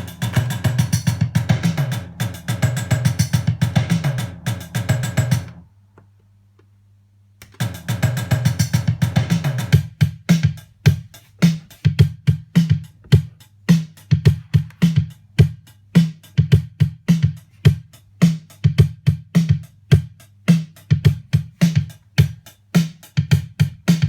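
TR-626 drum machine playing a kick, snare and hi-hat pattern. The pattern stops about six seconds in, leaving a low hum for about two seconds. It then restarts and changes to a sparser, evenly pulsing beat about ten seconds in.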